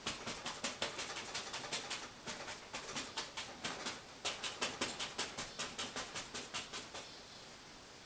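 A large oil-painting brush, a 2-inch brush, being tapped rapidly against the canvas on the easel, about five or six dabs a second, stopping about seven seconds in.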